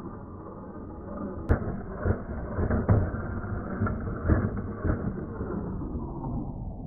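A small WPL C-series remote-control pickup truck rumbling over rough ground, muffled. A sharp click comes about a second and a half in, followed by several knocks as it bumps along.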